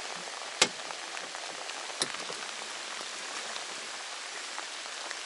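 Steady rain falling, an even patter of drops. Two sharp taps come through it, the louder one about half a second in and another about two seconds in.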